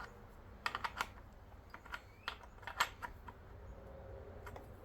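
Scattered light metallic clicks and ticks from hand work on a chainsaw: the chain tensioner being tightened with a T-wrench and the new chain handled on the bar. There is a quick cluster of about four clicks just under a second in, more around the middle, and a couple near the end.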